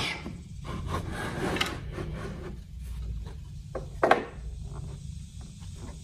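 Pieces of 2x4 lumber sliding and rubbing against each other and the wooden workbench as they are pushed together into a block, with a few knocks of wood on wood, the loudest about four seconds in.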